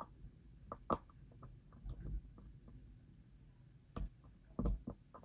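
Scattered small metallic clicks and ticks of lock picks and a tension tool working inside a DOM IX pin-tumbler lock cylinder during picking. A sharper click comes about a second in, and a few more come close together near the end.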